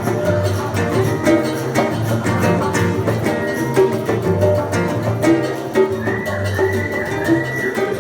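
Acoustic guitar (violão) playing a rhythmic instrumental passage with hand-drum percussion, no singing. A high tone repeating about twice a second joins about six seconds in.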